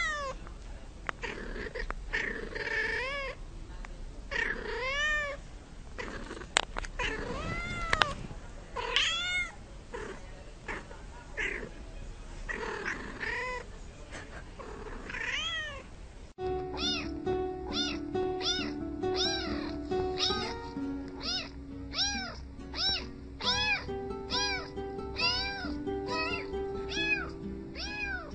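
Domestic cats meowing repeatedly, each meow rising and falling in pitch, one every second or two. About sixteen seconds in it cuts abruptly to a rhythmic run of meows, about two a second, set over a musical backing of held notes.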